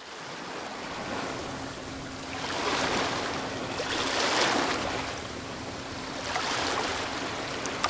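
Small sea waves washing in, the sound swelling and easing off about three times, with a faint steady low hum underneath.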